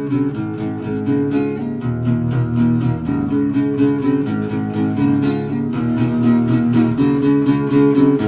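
Instrumental song intro: guitar chords strummed in a steady, quick rhythm, about four to five strokes a second, with no singing.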